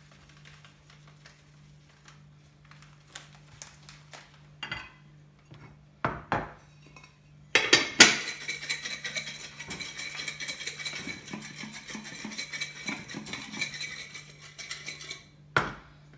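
Air-fried chips being shaken in a ringing container to coat them with spice: a few clicks and knocks, then about eight seconds of continuous rattling, ending with a knock.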